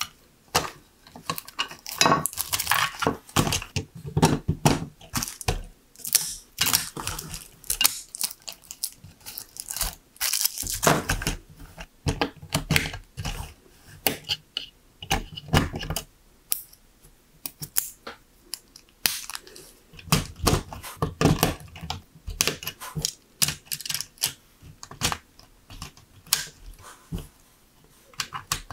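Hard plastic LEGO Technic pieces clicking, snapping and clattering as they are handled and pressed together by hand, with some rustling in between.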